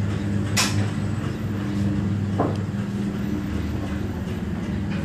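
Steady low hum of bowling-lane machinery, with a sharp click about half a second in and a duller knock about two and a half seconds in.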